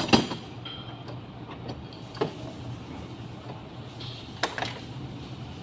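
Sharp clinks and knocks of hand tools and engine parts being handled under a car's hood: two close together at the start, one about two seconds in, and a pair near four and a half seconds in, over a steady low hum.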